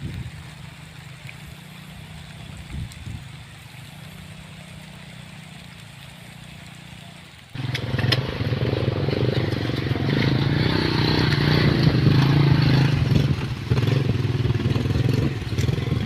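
A motor vehicle engine running steadily, then abruptly much louder and fuller about halfway through, staying loud.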